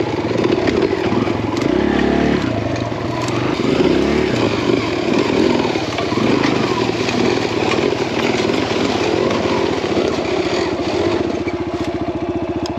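Small four-stroke Kawasaki KLX dirt bike engine revving up and down as it works over rough forest trail, with a second dirt bike running just ahead; the revs climb about two seconds in and settle into an even lugging beat near the end.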